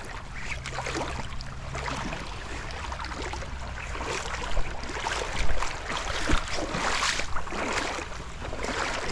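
Footsteps in waders splashing through shallow seawater over a steady wash of water, with irregular louder splashes, the loudest about halfway through.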